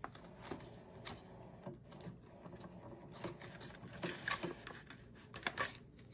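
Paper banknotes and clear plastic binder pockets being handled: faint rustling and crinkling with scattered soft clicks and taps as bills are counted out of a cash envelope and a binder page is turned.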